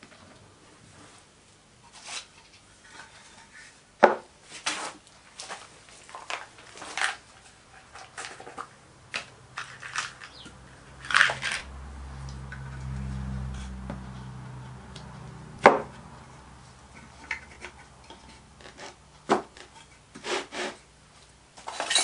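Wooden sand-casting flask being handled and fitted together on a board: scattered wooden knocks and clicks with small metal clinks from the flask's removable pins. Two sharp knocks stand out, about four seconds in and a little past the middle.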